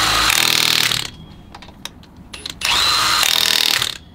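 Cordless impact wrench tightening lug nuts on an RV trailer wheel. It fires in two bursts of about a second each, roughly two and a half seconds apart, and each burst opens with a rising whine as the motor spins up.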